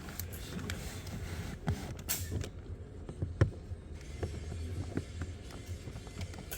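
Scattered light clicks and knocks of a plastic cabin-filter housing being handled and pushed into place, with one sharper click about halfway through, over a steady low hum.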